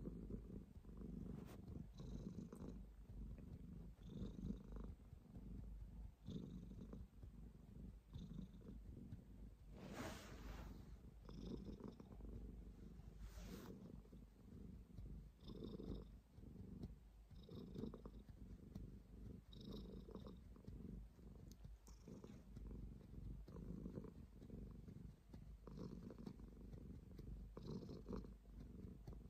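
Domestic cat purring while being stroked: a faint low rumble that swells and fades with each breath. Two brief bursts of noise about ten and thirteen seconds in.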